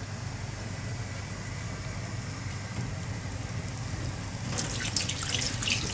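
A floured Mediterranean horse mackerel frying in oil in a pan: a steady sizzle that grows into denser crackling and spitting about four and a half seconds in.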